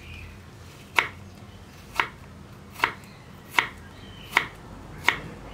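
Kitchen knife chopping green apple slices on a wooden chopping board: six sharp knocks of the blade striking the board, about one a second, coming a little faster toward the end.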